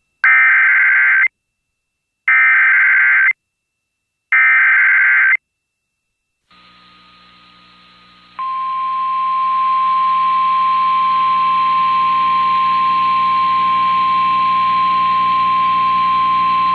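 Emergency Alert System activation over radio: three one-second bursts of SAME header data tones, buzzy and warbling, about a second apart, then after a short pause a single steady attention tone held for about nine seconds over a faint hum, signalling a tornado warning.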